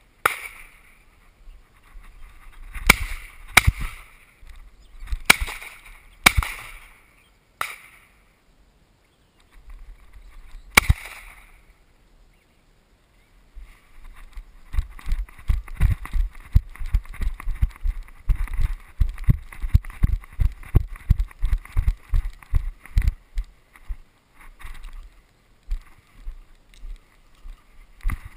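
Several sharp knocks in the first half, then footsteps swishing through long grass at a steady walking pace.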